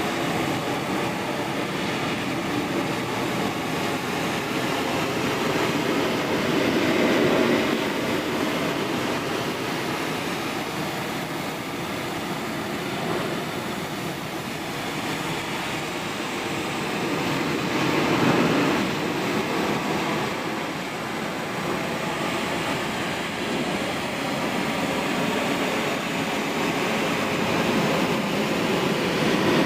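Pressure washer running steadily, its water jet hissing against deck boards, swelling louder about seven seconds in and again around eighteen seconds.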